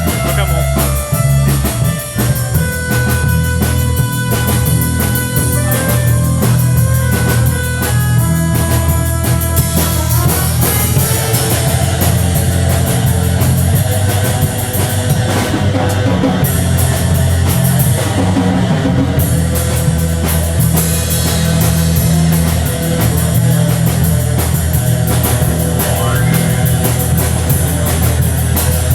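Rock band playing live at a soundcheck: drum kit with electric guitar and bass, the sound growing fuller and denser about ten seconds in.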